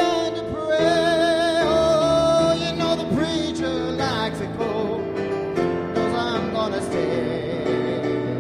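Male singer singing a ballad with vibrato, holding a long wavering note about a second in, over instrumental backing.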